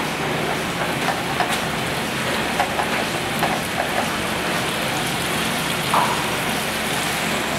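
Rice noodles sizzling as they stir-fry in a nonstick pan over a gas burner, with a steady hiss. A plastic spatula scrapes and taps the pan several times, once more sharply near the end.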